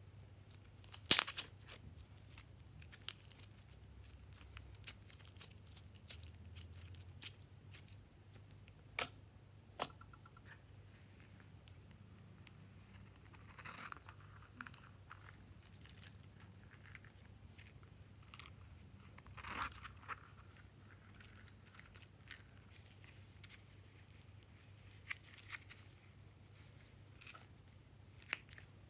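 Small plastic cases and trinkets handled and opened by hand over a tray of slime: scattered sharp clicks and taps, the loudest about a second in, with a couple of brief rustling scrapes.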